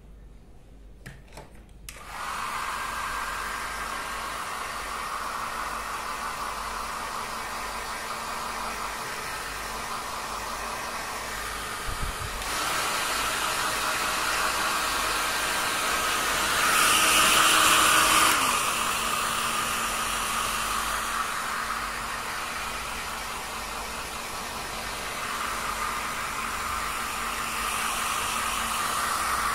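Hair dryer switched on about two seconds in and running steadily, getting louder for a couple of seconds around the middle before settling back.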